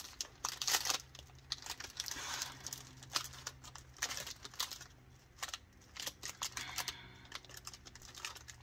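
Plastic packaging of a diamond-painting kit crinkling and rustling in irregular bursts as it is handled, over a faint steady low hum.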